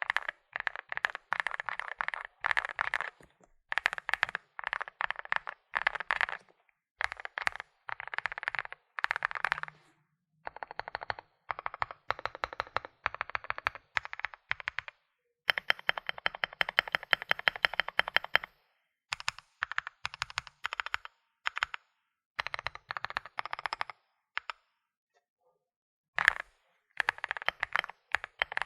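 Typing on a Finalkey V81 Plus mechanical keyboard with WS Morandi switches: fast runs of keystrokes in bursts of a second or two, broken by short pauses and a longer pause about three-quarters of the way through.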